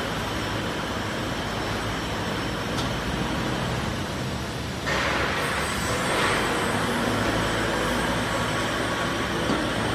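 Profile sanding machine running steadily as door panels are fed through on its conveyor, a continuous noise of motors and sanding strips. About five seconds in it gets louder and hissier.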